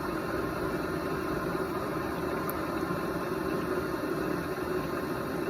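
Electric pottery wheel running steadily at speed while a lump of wet clay is coned up and down to center it.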